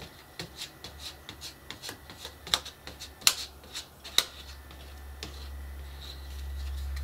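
A plastic scraper card spreading white glue over chipboard: a run of light scrapes and clicks as the card drags and taps across the board, with three sharper clicks about halfway through. A low steady hum grows in the last couple of seconds.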